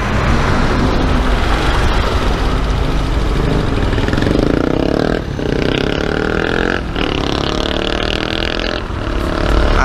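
Motorcycle engine running at low speed as the bike filters through slow city traffic, with road and wind noise throughout. From about four seconds in, an engine drone that glides in pitch joins from the traffic alongside, which includes a large truck.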